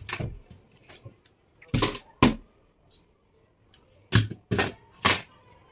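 Metal gas-stove parts knocked and clanked against a wooden counter by a toddler playing with them: sharp knocks and clanks, two close together around two seconds in and three in quick succession near the end.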